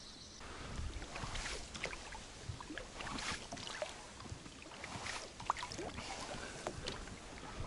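Oars of a small boat being rowed, dipping and splashing in the water about once every two seconds, with small knocks and clicks in between, over a low wind rumble.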